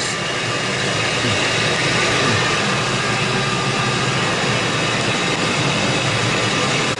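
2004 Ford F-150's engine idling steadily, the truck being put into drive with its 4R75W automatic transmission so the wheels turn.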